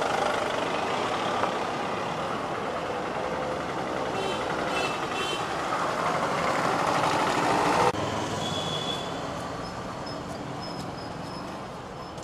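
Motor vehicle noise, rising in level, then cutting off suddenly about eight seconds in to a quieter, fading vehicle sound.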